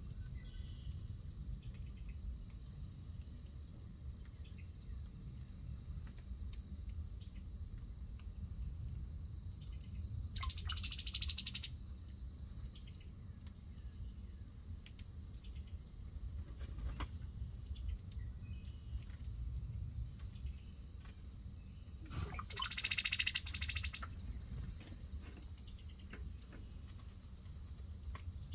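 Two short bursts of loud bird calling, one about ten seconds in and a longer one of about two seconds past the twenty-second mark, over a steady high-pitched insect trill and a low outdoor rumble.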